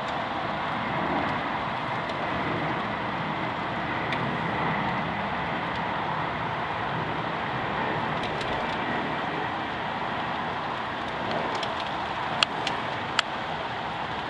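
Boeing 757-300 jet airliner passing overhead on approach, its engines giving a steady, even rumble. Two sharp clicks come near the end.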